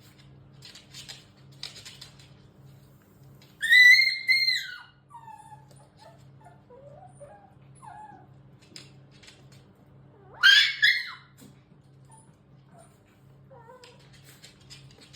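Shiba Inu squealing: two loud, high-pitched squeals, the first about four seconds in and the second rising sharply about ten seconds in, with softer wavering whines between them and near the end. This is the shrill 'talking' squeal Shiba Inus use with their mother from puppyhood.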